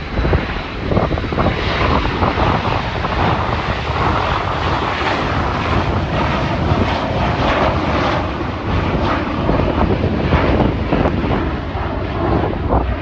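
Jet airliner's engines at takeoff thrust as it climbs away, a steady rushing engine noise that swells through the middle and eases off near the end, with wind buffeting the microphone.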